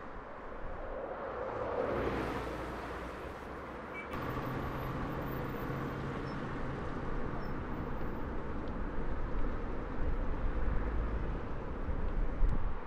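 Road traffic on a wide city street: a steady rumble of engines and tyres, with one vehicle passing closer about two seconds in.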